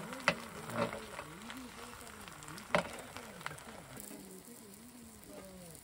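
A pot of stew with ham and kimchi simmering, bubbling and sizzling steadily, with two sharp clicks like a utensil against the pot.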